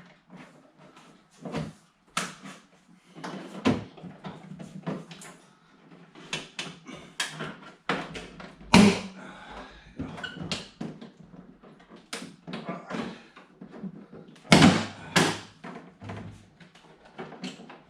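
Clicks, taps and knocks of a VW Passat door trim panel and its metal fastening clips being handled and fitted, with a few sharper, louder knocks, the loudest about nine and fifteen seconds in.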